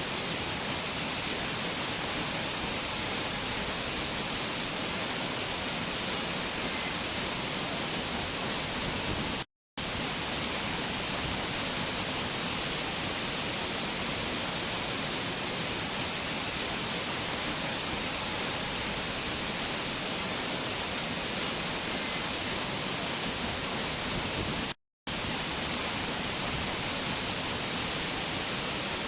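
Waterfall rushing in a steady, even hiss, cutting out to silence for an instant twice.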